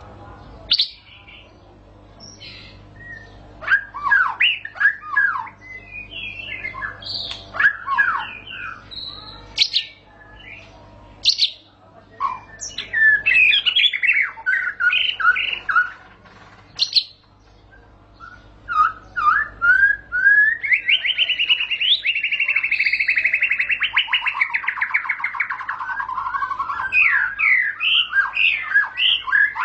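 White-rumped shama singing a long, unbroken run of varied whistles and chirps. About two-thirds of the way through it delivers a long, fast trill that slides from high to low over several seconds, then returns to short whistled phrases.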